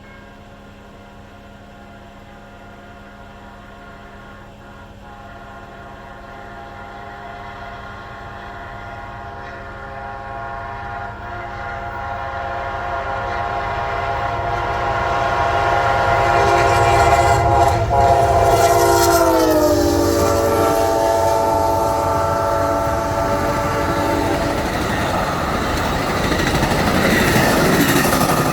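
Amtrak passenger train approaching at speed with its locomotive horn blowing in long blasts, growing steadily louder. The horn chord drops in pitch as the locomotive passes, then stops, and the noise of the passenger cars rushing by fills the end.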